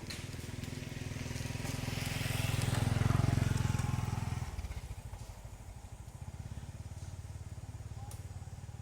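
A motor vehicle engine running with a low, even pulse. It grows louder to a peak about three seconds in, drops away sharply about a second and a half later, then runs on more quietly.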